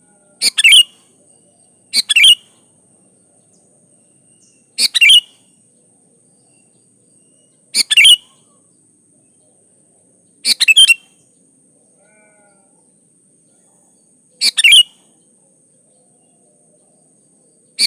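Sooty-headed bulbul (kutilang) calling: short phrases of a few quick notes, repeated about every two to four seconds with quiet gaps between.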